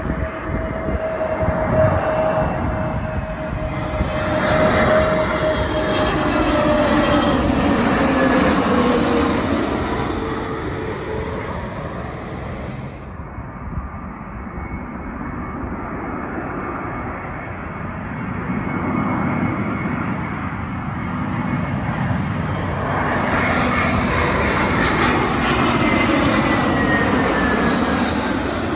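A British Airways Airbus A320neo on final approach passes low overhead: its jet noise swells and fades, and a whine drops in pitch as it goes by. A British Airways Airbus A321 on approach then swells in the same way, with its whine falling in pitch as it passes overhead near the end.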